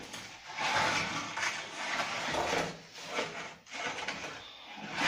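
A baker's peel scraping and sliding across the brick floor of a wood-fired oven as loaves are moved, in a few rough strokes, the longest through the first three and a half seconds and a shorter one near the end.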